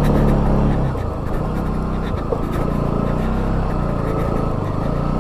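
Bajaj Pulsar NS200's single-cylinder engine running on a rough uphill dirt track, its revs rising and falling repeatedly as the rider works the throttle.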